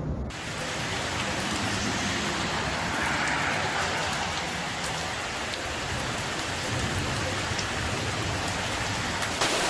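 Heavy rain falling, a steady dense hiss with a few sharp drop ticks, beginning abruptly and cutting off abruptly.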